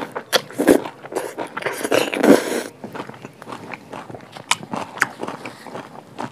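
Close-miked eating: irregular crisp crunches and chewing. The crunches are loudest in the first two and a half seconds, then give way to softer, scattered chewing clicks.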